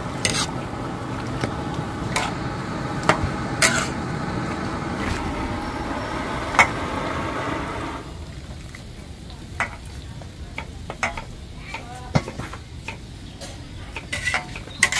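Food sizzling in a hot pan while a spatula scrapes and knocks against it. The sizzle cuts off suddenly about halfway through, leaving only occasional utensil clicks.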